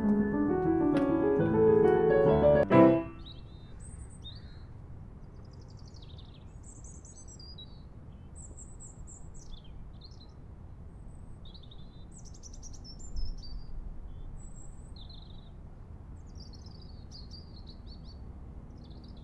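Piano music with quick runs of notes for about the first three seconds, cutting off abruptly. After that, small birds chirp in many short, high calls over a steady background hiss.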